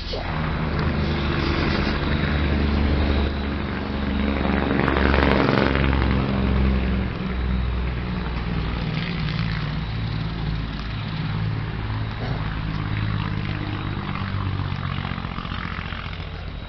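Vehicle engine and road noise: a steady low drone that swells about five seconds in, then settles.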